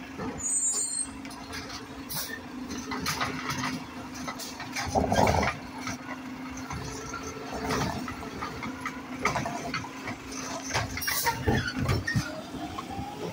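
Mack automated side-loader garbage truck running with a steady hum while its hydraulic arm handles a trash cart, with a series of knocks and clanks, the loudest about five seconds in. A rising whine comes near the end.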